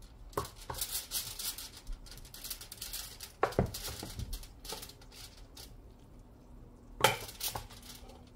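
A wooden spoon scooping cooked rice out of an aluminium pot and onto a plate: scraping and rustling, with sharp knocks of the spoon about three and a half seconds in and, loudest, about seven seconds in.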